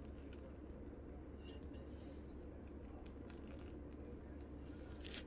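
Faint crinkling and soft squishing of a plastic piping bag being squeezed as it pipes whipped cream, with scattered light clicks, busiest near the end, over a steady low hum.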